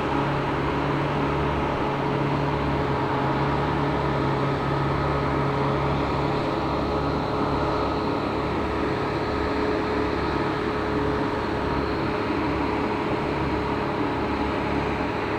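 Steady mechanical drone of running machinery, with constant low and mid hum tones that hold level throughout.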